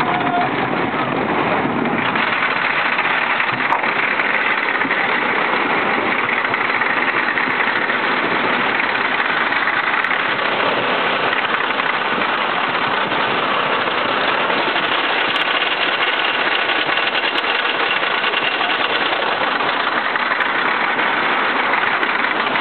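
Wooden roller coaster train being hauled up the lift hill by its chain: a steady mechanical clatter of the lift chain and train.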